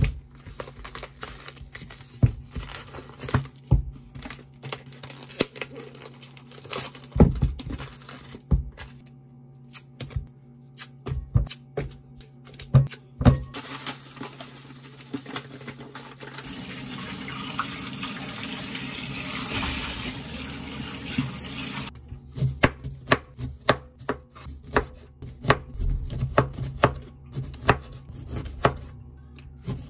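Scattered knocks and rustles of lemons being handled in their trays, then tap water running into a glass bowl of lemons for about five seconds. After that, a kitchen knife slicing lemons into thin rounds on a wooden cutting board: quick repeated strikes, two to three a second.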